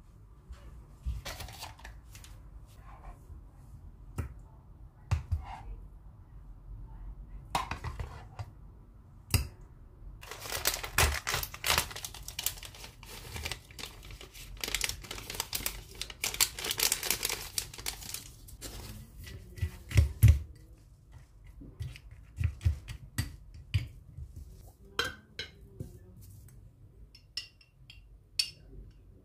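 Dessert being put together in a glass bowl: scattered clinks and knocks, then from about ten seconds in a plastic packet crinkling as granola and nuts are poured from it onto yogurt for several seconds. A couple of louder knocks follow about twenty seconds in, then light clicks of a wooden spoon against the glass.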